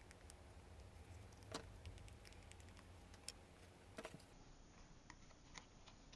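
Near silence broken by a few faint, sparse clicks and taps of stiff card pieces being handled and pressed together.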